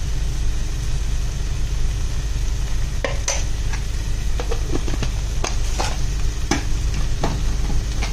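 Thick prawn roast masala gravy cooking on the stove in a nonstick pan: a steady low hum, and from about three seconds in, scattered short pops and ticks.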